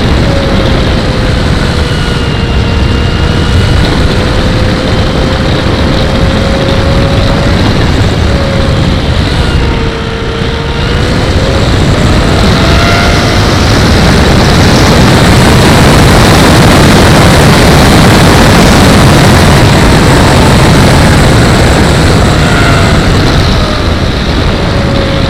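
Engine and propeller of a radio-controlled Joker XL tow plane in flight. Its tone wavers up and down, dips about ten seconds in, and the sound grows louder in the second half as the plane comes closer.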